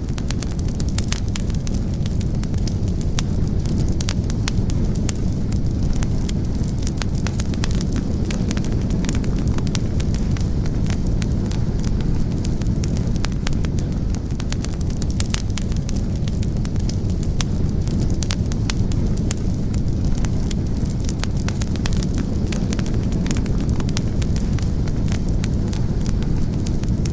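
Fire burning in a fireplace, crackling steadily: many small sharp crackles over a constant low rumble.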